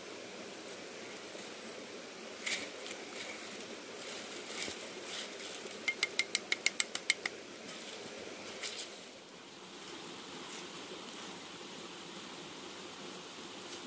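Sharp clicks and knocks over a steady rushing noise, with a quick run of about ten clicks, roughly eight a second, about six seconds in.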